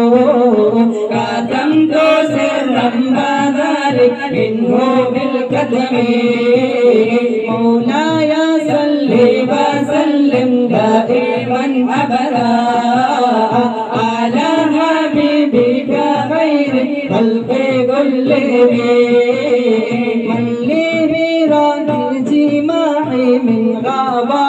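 A group of boys singing a song together into microphones, several voices in unison over a steady low beat.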